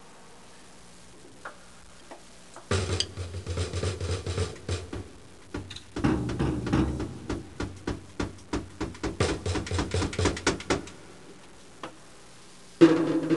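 Drumsticks tapping on a drum kit in quick, light runs: two stretches of rapid strokes after a quiet start. Near the end a loud sustained pitched sound comes in suddenly.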